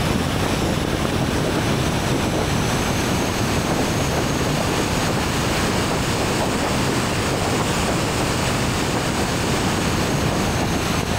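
Tesla Cybertruck at about 70 to 100 mph over grass: a steady rush of wind and tyre noise with no engine note, since the truck is electric. The wind is blowing over the microphone of the camera mounted outside.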